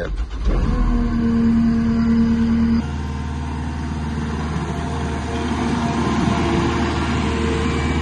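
JCB 3TS-8T compact track loader's 74 hp diesel engine catching and running after a key start, with a steady tone over it for about two seconds. About three seconds in the sound drops a little, and the engine runs on steadily as the machine moves.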